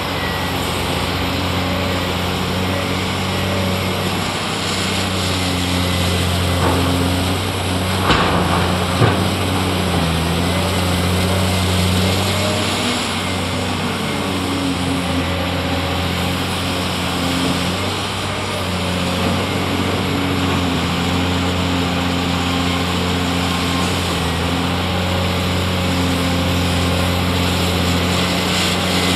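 Caterpillar 390D large crawler excavator's diesel engine running hard while digging and swinging a load, its pitch dipping and recovering at times as it works. A couple of sharp clunks from the bucket and rock come about eight and nine seconds in.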